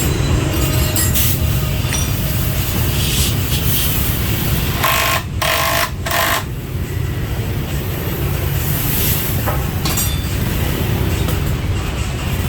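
Steady low rumble of busy motorbike street traffic, with three short bursts of hiss about five to six and a half seconds in.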